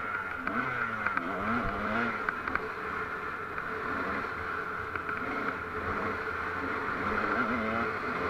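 Off-road vehicle engine running over a rough dirt track, its pitch rising and falling with the throttle, with clatter and rattling from the bumps.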